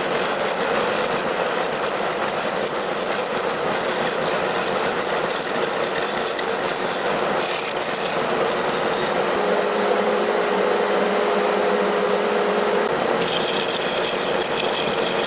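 Wood lathe running with a turning tool cutting steadily into a spinning blank of wet pecan, a continuous scraping, cutting noise over the lathe's hum.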